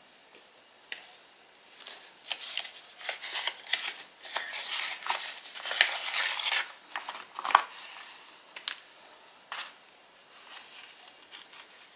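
Sewing thread drawn through a printed paper sheet while the sheet rustles and crinkles in the hands: a string of short scratchy rustles and clicks, busiest in the first half and thinning out toward the end.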